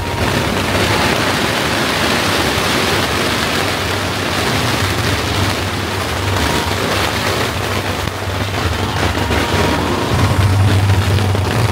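A very large firecracker barrage going off, the bangs so rapid and dense that they merge into one steady crackling rush of noise.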